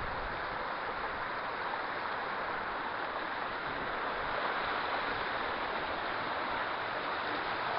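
Waterfall on a hill burn, water rushing and splashing over rocks in a steady hiss.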